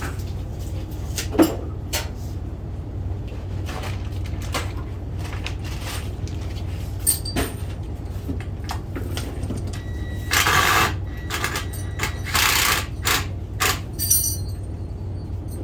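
Scattered knocks and clicks of hand work fitting wood trim around a door opening, over a steady low hum. Near the end come two louder rasping noises, each about a second long, with a few sharper knocks between them.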